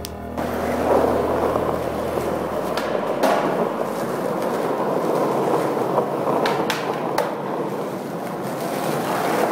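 Skateboard wheels rolling over rough asphalt with a steady grinding rumble. A few sharp clacks of the board strike the ground about three, six and seven seconds in.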